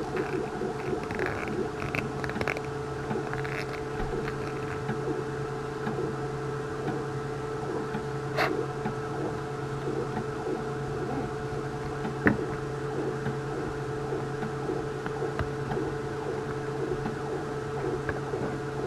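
A 3D printer running with a steady hum of several constant tones, under light scraping of a plastic part being cleaned out and a couple of sharp clicks.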